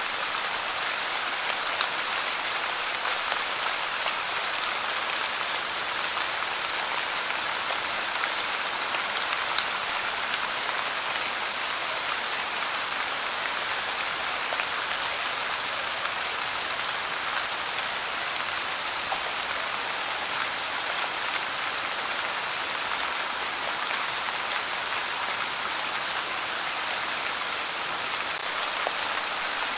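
Steady light rain falling: an even patter of many small drops with faint individual drop ticks scattered through it.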